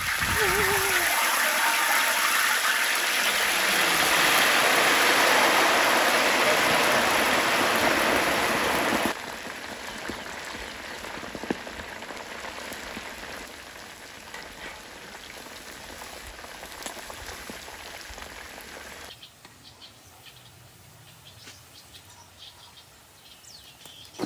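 Chicken feet deep-frying in a large wok of hot oil. A loud, dense sizzle drops abruptly to quieter crackling with small pops about nine seconds in, and quieter again near the end.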